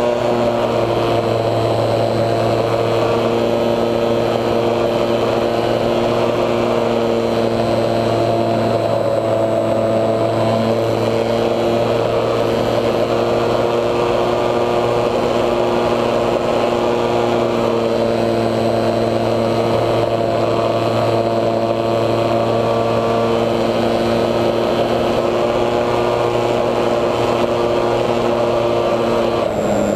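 Electric motor and propeller of a HobbyZone Super Cub RC plane whining steadily in flight, heard from a camera on the plane itself. The pitch dips briefly near the end.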